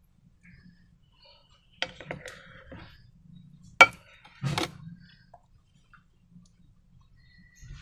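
A few knocks and clicks of hard objects being handled: a cluster about two seconds in, one sharp loud click just before four seconds, and a short rustling knock just after.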